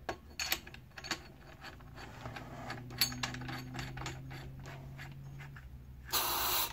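A large CO2 cartridge being screwed by hand into the back of a Sig Sauer MPX CO2 pellet rifle: a run of small metallic clicks and scrapes from the threads. Near the end comes a short hiss of gas as the CO2 goes into the gun.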